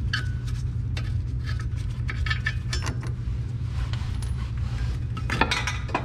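Hand tools working bolts on the car's underside: scattered light metallic clicks and clinks, coming fast and close together near the end, over a steady low hum.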